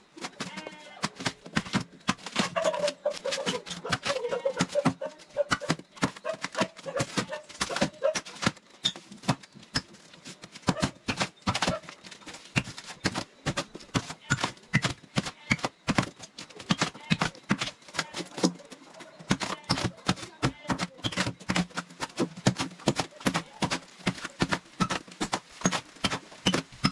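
Polystyrene foam block being hacked and broken apart with a small hand tool: a fast, irregular run of sharp taps, knocks and cracks, several a second.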